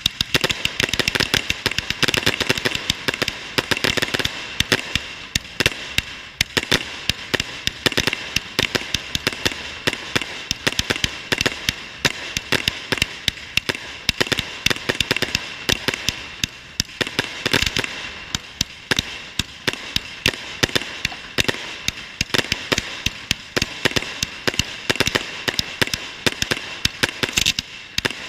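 Fireworks finale: a dense, unbroken run of rapid bangs and crackles from volleys of comets, fans of gold sparks and bursting shells, with a steady hiss underneath.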